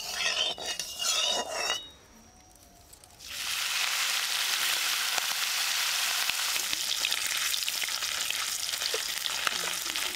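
Food tipped into hot mustard oil in an aluminium kadai starts sizzling sharply about three seconds in, then keeps frying with a steady crackling sizzle as it is stirred with a metal spatula.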